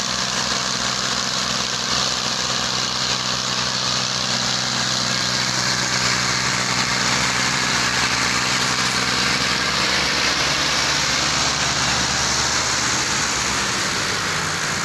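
Massey Ferguson 240 tractor's three-cylinder diesel engine and a second tractor's engine running steadily under load while pulling a loaded sugarcane trolley out of mud. The deep engine note fades out in the last few seconds.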